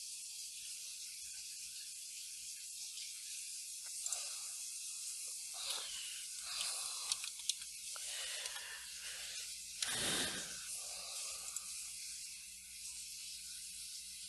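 Steady hiss of a recording microphone's background noise. Partway through there are a few faint clicks and muffled knocks, and about ten seconds in a short, louder thump.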